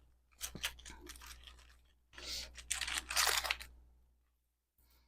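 Wrapping on a small package being opened by hand: crinkling and tearing in two stretches, with a few light clicks, then it stops about three and a half seconds in.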